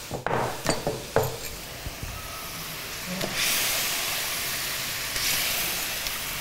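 Marinated chicken pieces poured into a wok of hot oil and caramelised sugar, a few short knocks at first, then loud sizzling from about three and a half seconds in as the wet meat hits the hot fat.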